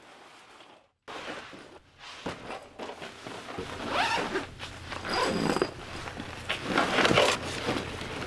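The zipper of a fabric duffel bag being pulled open in several strokes, the loudest about four, five and seven seconds in, along with the bag's fabric rustling.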